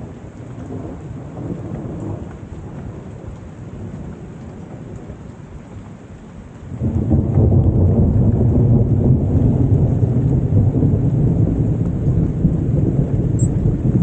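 Thunder rolling during steady rain: a low rumble in the first seconds, then about seven seconds in a much louder peal sets in suddenly and keeps rumbling.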